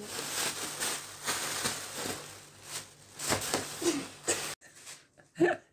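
Crinkling and rustling of thin plastic packaging, with many quick crackles, as a cat plays with a plastic bag. It cuts off suddenly about four and a half seconds in, and a single short, sharp sound comes near the end.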